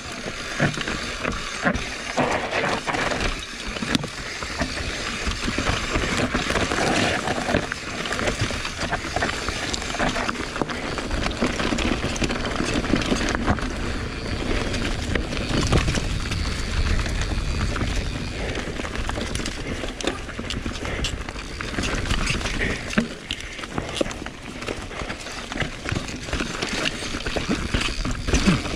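Mountain bike ridden over a rough dirt trail: tyres rolling over dirt, roots and rocks, with the bike rattling in many small, irregular knocks.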